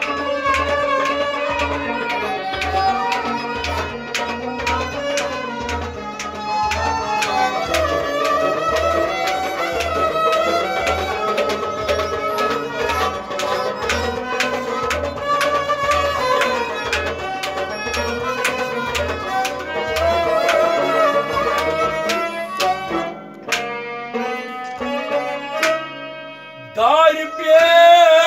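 Folk ensemble playing an instrumental passage: a clay pot drum keeps a steady beat under a harmonium melody. About 22 seconds in, the drumming breaks off into a few scattered strokes, and near the end a voice comes in.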